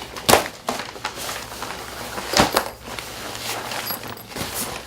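Rustling and several sharp knocks as unboxed items and their packaging are handled and put down.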